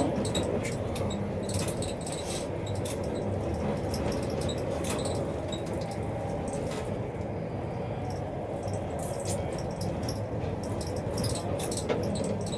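Steady low hum inside a tram's driver's cab, with scattered small clicks and ticks throughout.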